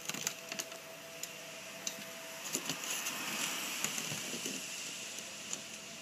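Rain hiss with scattered sharp clicks and taps. The hiss swells for a couple of seconds in the middle.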